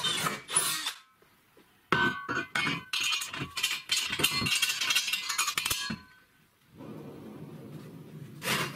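Drill press boring through a steel square tube for about the first second. After a short pause, steel parts clink and knock together for several seconds, with short ringing notes, as a wheel hub and its bolted brackets are fitted to the welded steel frame.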